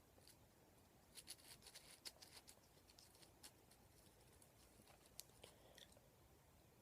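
Near silence, broken by a scatter of faint, irregular small clicks and ticks from about a second in until near the end.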